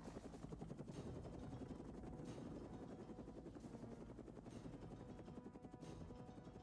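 Helicopter rotor chopping steadily, a fast even beat, with a few faint sharp cracks spaced about a second apart.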